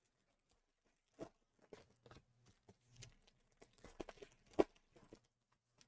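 Foil trading-card pack being pulled open by hand, with faint crinkling and rustling and scattered clicks as the cards are handled. The sharpest click comes about three-quarters of the way through.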